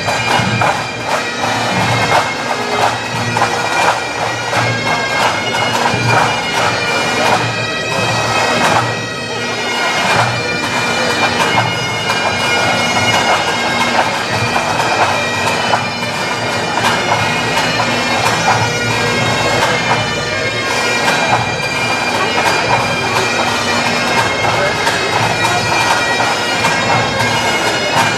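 Bagpipes playing the recessional, a tune over a steady drone, with crowd chatter underneath.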